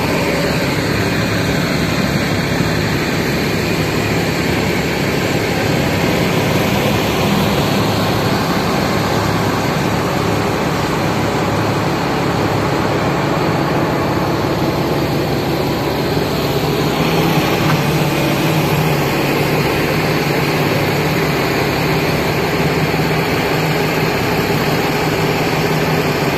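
Engines of double-decker buses idling, a steady low engine hum over a constant noise.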